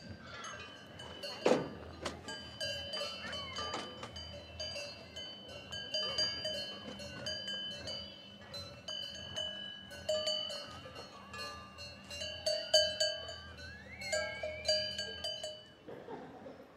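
Many cowbells on grazing livestock clanking at an uneven, overlapping rhythm, each strike ringing on. About a second and a half in there is a brief, loud falling sound.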